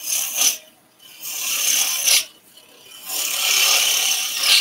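Turning gouge cutting into wood spinning on a lathe while taking the diameter down: three cutting passes with short pauses between, a brief one and then two of about one and one and a half seconds.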